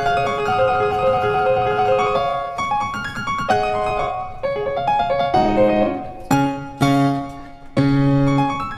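Background piano music: a melody of struck notes over chords, with deeper bass notes coming in during the second half.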